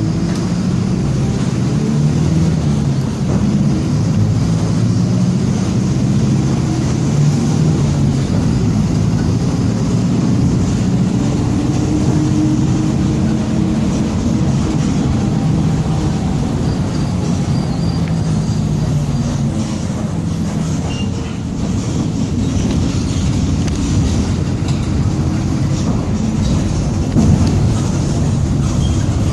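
Mercedes-Benz OF-1722M city bus under way, its engine and drivetrain running loudly with the differential growling. A whine rises and falls in pitch in the middle.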